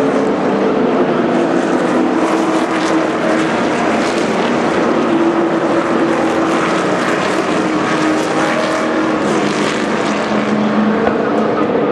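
Race truck V8 engines running, a steady loud drone whose pitch drifts slowly as the trucks pass.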